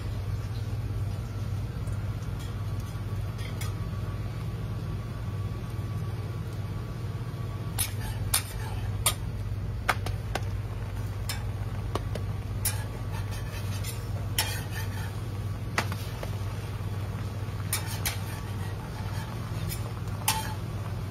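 Metal spatula clacking and scraping on a flat-top griddle as egg pancakes are flipped, in irregular sharp strikes starting about eight seconds in. Under it runs a steady low hum with a faint sizzle.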